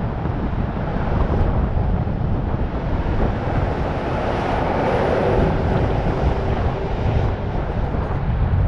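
Steady rush of wind on the microphone of a camera riding on the outside of a moving vehicle, mixed with road and traffic noise; the rush swells briefly about halfway through.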